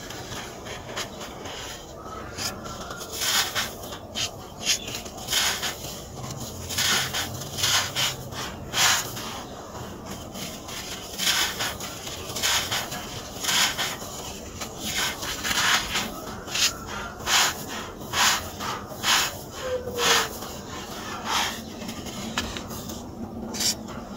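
A molded chunk of dry, gritty sand being squeezed and crumbled in the hands, over a low rubbing grit. Its crunches come in a long run of short bursts, about one or two a second, easing off near the end.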